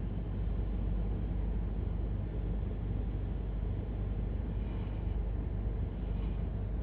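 Steady road noise inside a car's cabin while driving on a wet highway: a deep, even rumble with tyre hiss on top.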